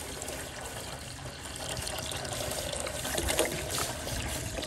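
Water pouring in a steady stream into a stainless steel pan, splashing as the pan fills.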